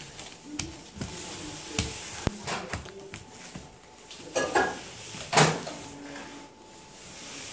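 A crawling baby's hands slapping down on interlocking foam floor mats: a run of sharp, irregular smacks, the two loudest about four and a half and five and a half seconds in.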